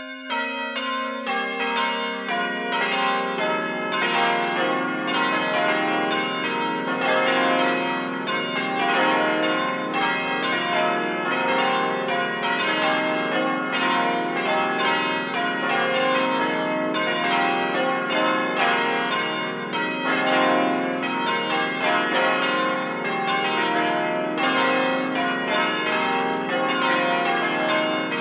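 A ring of church bells ringing changes: the bells come in one after another over the first few seconds, each lower than the last, then keep striking in quick, even succession, each note ringing on into the next.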